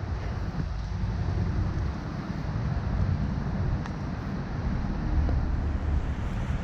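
Steady low rumbling background noise, with a faint click about four seconds in.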